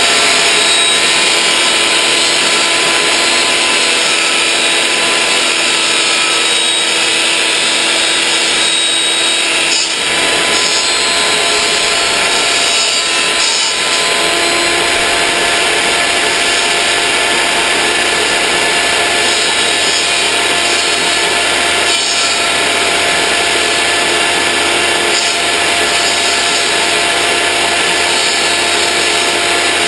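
Benchtop table saw running with a steady motor whine while a plexiglass sheet is fed through the blade.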